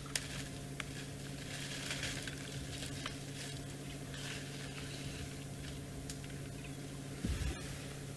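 Elephants feeding in dry woodland: scattered crackles, snaps and rustles of twigs and leaves being broken and stripped. Underneath is a steady low hum, and a soft low thump comes about seven seconds in.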